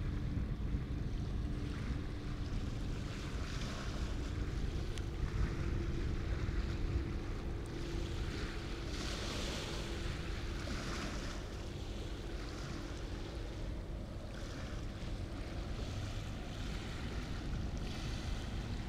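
Wind buffeting the microphone over water washing in surges that swell and fade every few seconds, with a steady low hum underneath.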